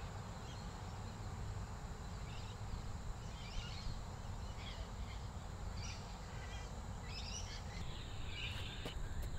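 Outdoor ambience of scattered bird chirps over a steady low rumble, with a faint steady high-pitched whine underneath.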